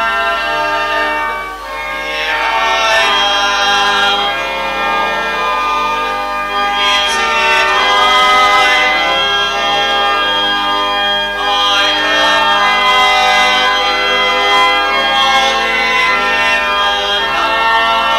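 Slow church music: long held organ chords with singing, the phrases breaking about every five seconds.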